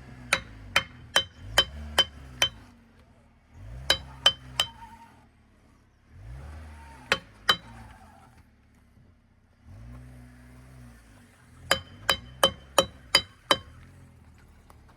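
Peugeot 206's engine revving in four short bursts, each with a sharp metallic clink repeating about two to three times a second: the noise that was traced to a broken coil spring above the wheel.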